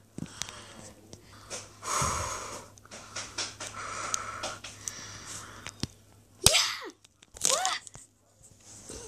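A person's breathy vocal noises, short exhalations and gasps, with two loud brief cries of sliding pitch about two thirds of the way through.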